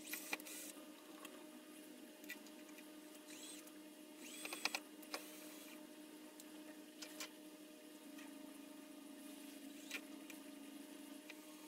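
Cordless drill driving small screws into the wooden side of a box to fit a latch, in several short bursts, its motor whining up in pitch each time the trigger is pulled.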